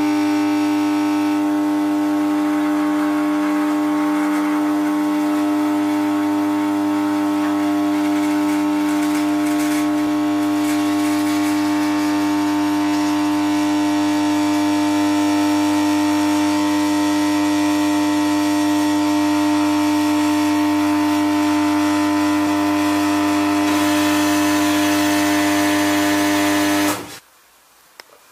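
A steady humming drone held on one pitch, with many overtones and a low hum beneath it. It cuts off suddenly about a second before the end, leaving a faint hiss.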